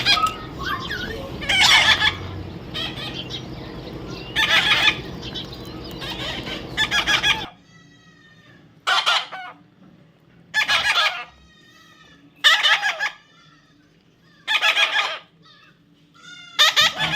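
A parrot squawking, with a harsh, raspy call of about half a second repeated roughly every two seconds. A steady background noise stops abruptly about halfway through, leaving the calls on their own.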